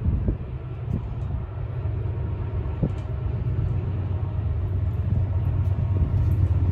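Diesel locomotive hauling a nuclear flask train as it approaches, a low engine rumble growing steadily louder.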